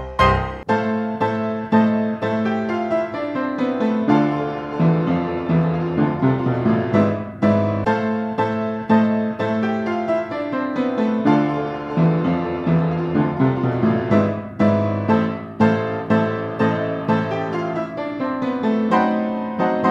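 Piano music in the manner of a silent-film accompaniment, playing quick runs of notes that climb and fall.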